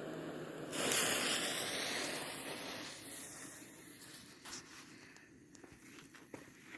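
Weco Fountain of Life 3 ground fountain firework hissing as it sprays sparks, jumping to its loudest about a second in and then fading. Over the second half the hiss gives way to scattered crackles and pops.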